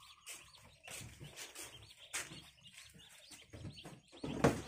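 Newly hatched ducklings peeping over and over in a hatcher, with one louder thump about four and a half seconds in.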